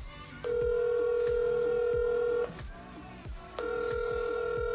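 Phone call ringback tone heard through a smartphone's speaker: two long steady rings of about two seconds each, a second apart, while the call goes unanswered.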